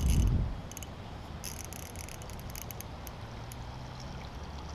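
Ultralight spinning reel ticking in quick clusters as it is worked, densest in the middle. A brief low rumble of handling noise comes right at the start.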